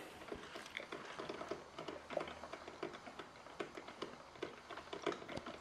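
Mr. Coffee drip coffee maker brewing, with a fairly faint, dense run of small irregular clicks and pops.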